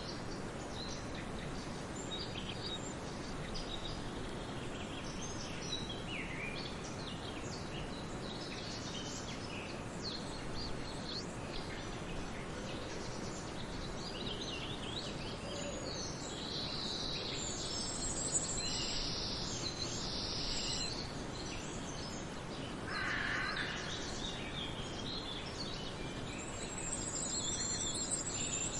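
Several forest birds singing and calling over a steady background hiss, with short high chirps and trills throughout and a lower call about two-thirds of the way in.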